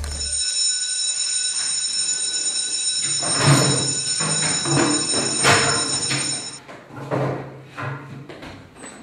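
An electric bell ringing with a steady high tone for about six and a half seconds, then cutting off. Classroom knocks and rustling join in about three seconds in.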